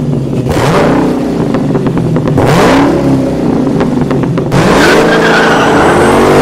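Car engine revving, its pitch climbing and falling several times, with a high squeal in the second half.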